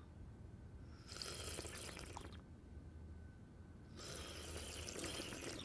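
Tea being slurped, twice: two long slurps, each a second or more, the second sipped straight from a saucer.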